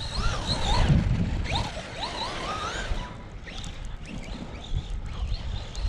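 Arrma Big Rock 3S RC monster truck's brushless motor whining, its pitch rising and falling with the throttle, most busily in the first couple of seconds, over a steady low rumble of wind on the microphone.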